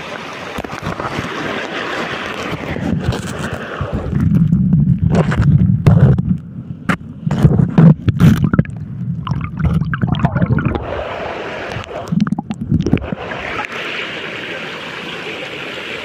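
A shallow mountain stream rushing over stones. About four seconds in the microphone goes under the water and the sound turns muffled and heavy: loud underwater gurgling and rumbling with clicks and knocks. About thirteen seconds in the open rushing of the stream returns.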